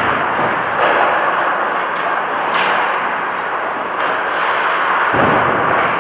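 Steady road and wind noise of a moving car, with a low thump about five seconds in.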